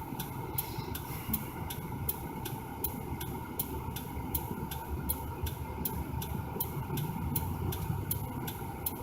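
Car turn signal clicking at an even pace, about three clicks a second, for a left turn. Under it is the low, steady rumble of the stopped car.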